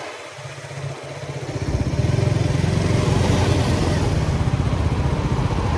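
Motorcycle engine pulling away at low speed, picked up by a helmet-mounted phone: its pulsing rumble builds over the first two seconds, then runs steadily.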